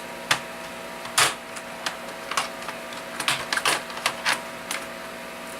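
Irregular sharp plastic clicks and snaps as an Asus laptop's bottom casing is pried off with a sharp-edged tool, the loudest snap about a second in.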